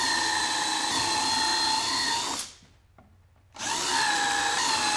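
Electric drill with a long 1/4-inch bit boring bolt holes through a 2x6 board: a steady whine that stops about two and a half seconds in and starts again about a second later.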